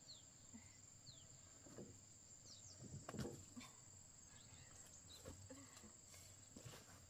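Quiet rural ambience: a steady high-pitched insect trill, such as a cricket's, with a few short falling chirps and several soft knocks or rustles, the loudest about three seconds in.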